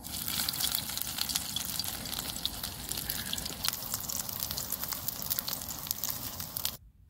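Food frying in a hot pan: a steady sizzle thick with tiny pops and crackles, which stops abruptly near the end.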